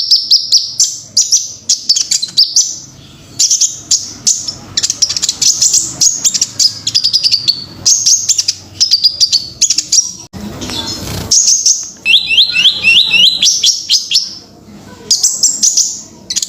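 Kolibri ninja (a sunbird) singing: rapid, high-pitched chirps and fast trills in quick succession, with a short noisy rustle about ten seconds in.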